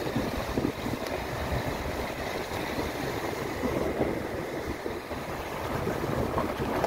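Steady road and wind noise from a vehicle moving along a road, a rushing rumble with no distinct engine note.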